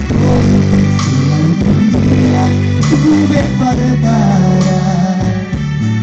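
A man singing into a handheld microphone over loud amplified backing music with a steady bass line.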